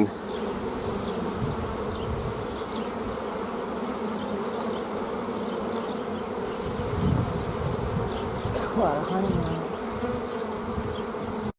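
Honeybees from an opened hive buzzing in a steady, dense hum.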